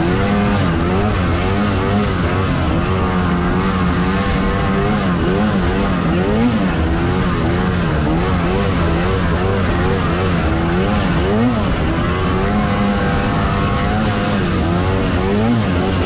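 Arctic Cat Alpha One M8000 snowmobile's two-stroke twin engine running under way. Its pitch rises and falls constantly as the throttle is worked through the trees.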